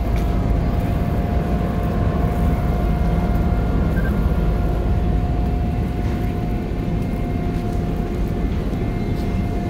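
The MS Chi-Cheemaun ferry's engines: a steady low rumble with a constant humming tone, unchanging throughout.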